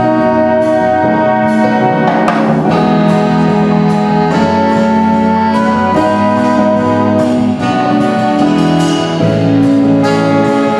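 Jazz big band playing, with trumpets and saxophones sounding held chords together.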